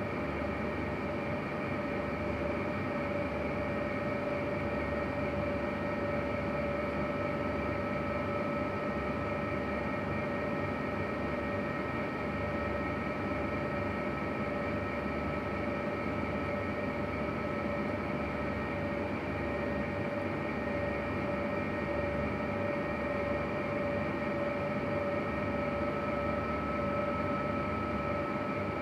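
A steady machine hum with a few faint high whining tones over it, unchanging in level.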